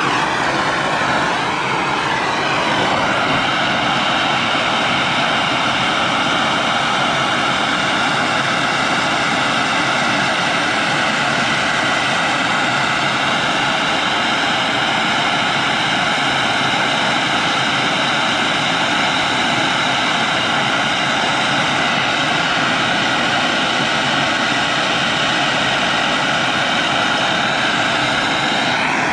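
Hose-fed gas soldering torch burning with a loud, steady hiss, its blue flame heating a copper-to-brass sweat joint for soldering.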